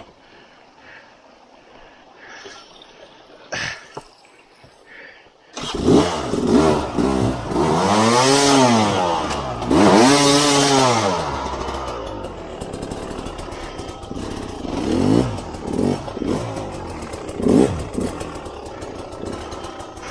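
Sherco 250 SER two-stroke dirt bike engine starting abruptly about five and a half seconds in, revving up and down twice in long sweeps, then running at a low idle with a few short blips of throttle. Before it starts there are only a few faint knocks.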